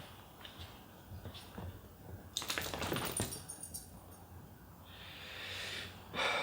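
Light metallic jingling and clicking, like dog collar tags, loudest in a brief cluster of clinks about two and a half seconds in, followed near the end by a soft hiss.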